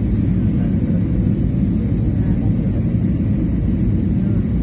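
Steady low rumble of an Airbus airliner's engines and the airflow past the fuselage, heard inside the passenger cabin on approach to landing.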